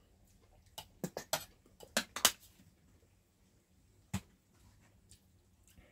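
Cutlery clinking against plates during a meal: a scatter of short, sharp clicks, the loudest about two seconds in, and one more just after four seconds.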